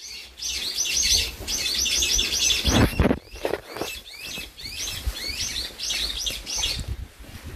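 A songbird singing a quick, repeated series of high chirping phrases, one after another. A few low thuds on the microphone sound about three seconds in.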